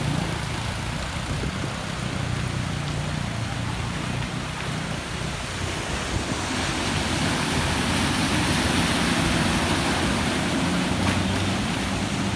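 Rushing floodwater with a vehicle engine running through it. The water noise swells about halfway through and stays loud for several seconds, as if a vehicle were pushing through the flood.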